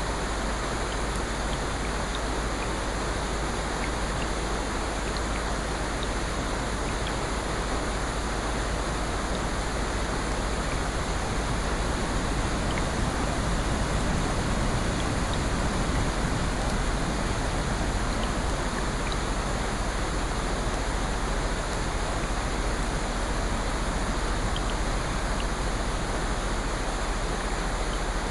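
Steady rushing water noise, swelling a little about halfway through.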